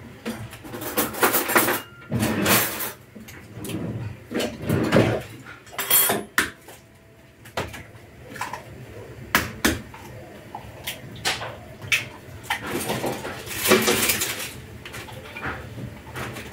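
Kitchen clatter: scattered knocks and clicks of dishes, utensils and a sandwich toaster's lid being handled.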